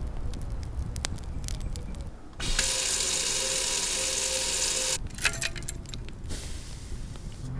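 Wood fire crackling with sharp pops, then water poured steadily from a pitcher into a cast-iron Dutch oven for about two and a half seconds. After that, brief metallic clinks of the pot's wire bail handle against the hanging chain hook.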